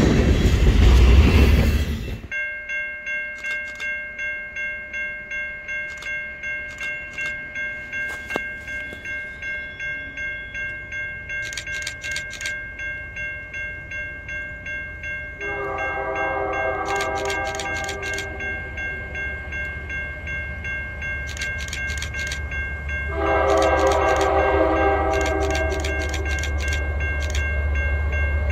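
Freight cars rumbling past at the start, then, after a cut, an approaching diesel freight locomotive sounds its air horn in two long blasts, about halfway through and again near the end. A bell rings steadily about twice a second before the horn, and the locomotive's engine rumble grows as it nears.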